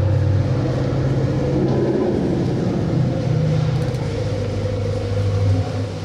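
Asian elephants rumbling: long, deep, steady calls that overlap, fading about five and a half seconds in.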